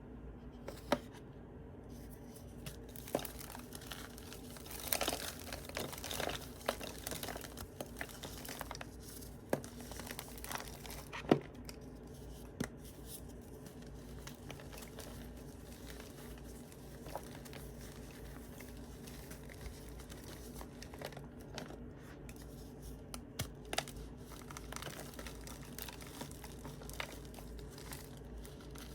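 Blocks of sidewalk chalk and sawn chalk being crumbled by hand, crunchy yet powdery: irregular crackling and gritty crumbling with scattered sharp snaps, busiest about four to eight seconds in, with one loud snap a little after the eleventh second.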